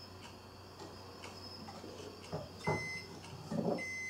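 Java sparrow pecking at a komatsuna leaf in its cage: a run of quick beak ticks, with two louder bursts a little past halfway, each followed by a short steady high note.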